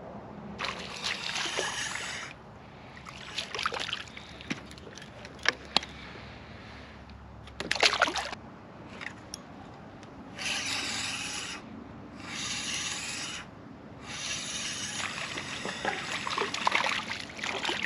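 Spinning reel (Shimano Stradic FL 1000) being cranked slowly, rasping in spells of a second or two, with a few sharp clicks and a brief louder clatter about eight seconds in.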